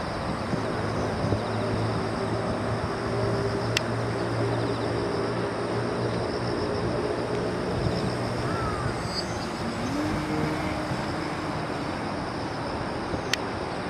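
Electric AXI brushless motor and propeller of a small radio-controlled Pitts Special biplane whining in flight, the pitch shifting with throttle and rising about ten seconds in.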